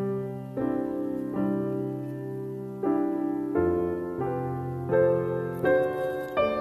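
Background piano music, soft notes and chords struck at an unhurried pace, a new one roughly every second.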